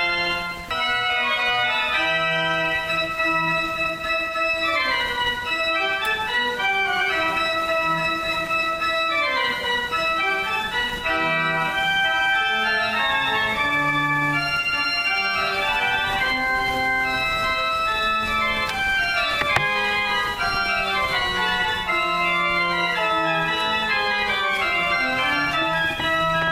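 Organ music: held chords with runs of notes stepping up and down over sustained bass notes.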